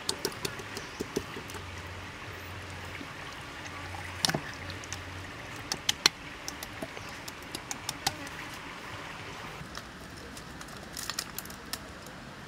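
Hands massaging marinade into a raw whole chicken: irregular wet slaps and squelches over a steady background hiss. A quick cluster of light clicks comes near the end.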